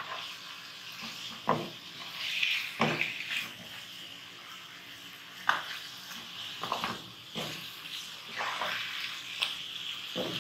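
Chicken pieces sizzling in hot oil with onion and ginger-garlic paste in a non-stick wok, at the bhuna (browning) stage, while a wooden spatula stirs them with repeated short scrapes and knocks against the pan.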